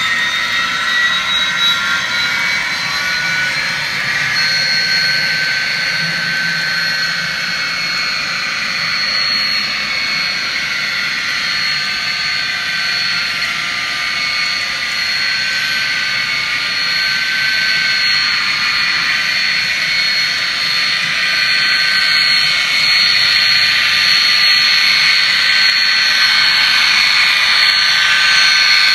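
Sound-equipped N scale Burlington Northern SD40-2 model locomotive running, its sound decoder playing a diesel engine through a tiny speaker. A high whine rises in pitch over the first few seconds and then holds steady. The sound grows a little louder near the end.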